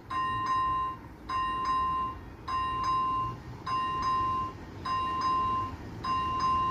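Railway level-crossing warning bell ringing a double ding about every 1.2 seconds, the signal that the barriers are down and a train is due. A low steady rumble lies underneath.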